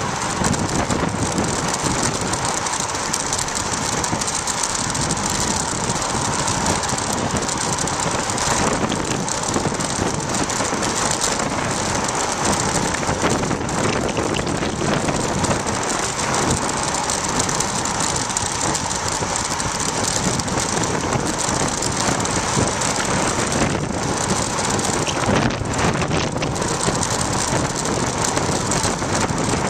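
Steady wind rush over the microphone mixed with tyre noise on asphalt as a bicycle coasts downhill at speed.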